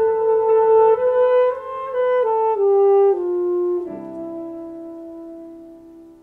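Solo saxophone holds a note, then plays a falling run of short notes starting about a second in. It settles on a long low note just before halfway and lets it fade away by the end.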